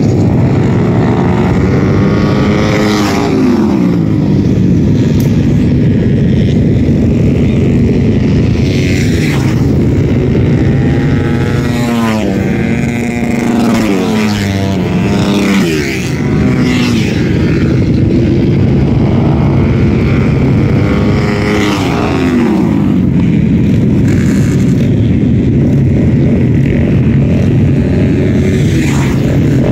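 Several racing motorcycles running hard around a dirt oval. Their engine notes drone without a break, and the pitch drops steeply several times as bikes go by.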